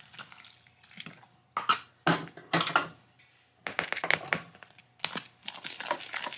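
Water poured into a bowl of flour and shredded cheese, then a metal spoon scraping and clinking against the bowl as the batter is stirred, in several short bouts.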